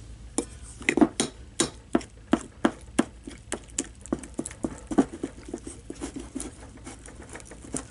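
Sticky slime being stirred with a stick in a bowl: a run of wet clicks and pops, a few every second, as the stick pulls through it. The slime is thickening after contact solution was added.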